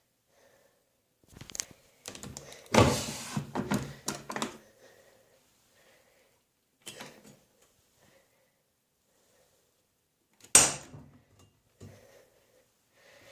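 Knocks and clunks from a Miele W3623 front-loading washing machine being handled: a cluster of knocks a few seconds in, then one sharp knock about ten seconds in, with near quiet between.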